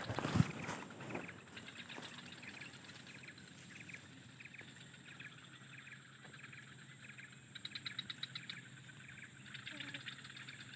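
A bird chirping outdoors, short calls repeating about twice a second, with a quick rattling run of calls about eight seconds in, over a steady thin high-pitched drone. A knock sounds right at the start.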